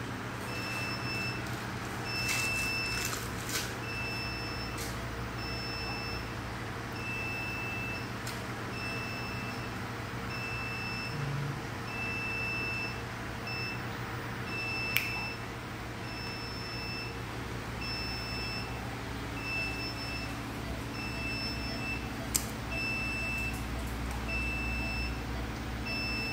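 Hospital equipment alarm beeping steadily, a short high-pitched beep a little more than once a second, over a steady low hum of machinery. Two sharp clicks stand out, about halfway through and again later.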